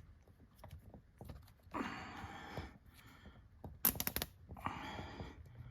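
Hands working a rubber boot and plastic zip tie onto a tow bar's lock collar: two spells of rustling, and a quick run of sharp clicks near the middle, with the echo of a concrete garage.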